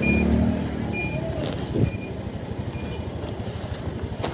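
An electronic beeper sounding a short high beep about once a second, fading out near the end, over a vehicle engine running and traffic noise.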